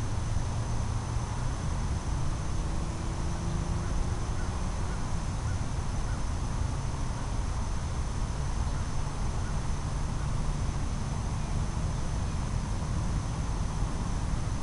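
Steady outdoor background noise: a low rumble and hiss with a faint steady high whine, and no distinct events.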